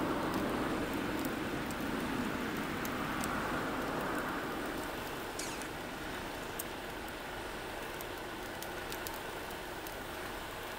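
Frozen takoyaki sizzling in a small frying pan over a canister gas stove: a steady hiss with scattered fine crackles from the oil. A fuller rushing sound underneath dies down about four seconds in.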